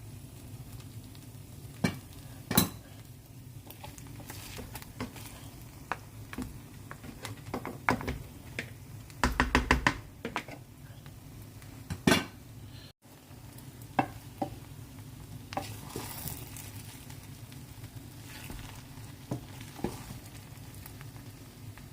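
Metal spoon clinking and scraping against a cooking pot, scattered knocks with a quick run of taps about nine seconds in, over a steady low hum.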